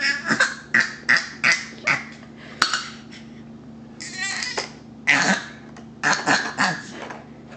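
Baby girl's staccato "machine gun" laugh: rapid breathy bursts of laughter, about four a second, in runs broken by short pauses.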